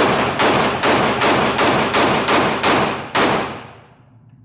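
AR-15 rifle fired rapidly in semi-automatic, about nine shots at a little over two a second. The string stops about three and a half seconds in, and the echo of the last shot fades away.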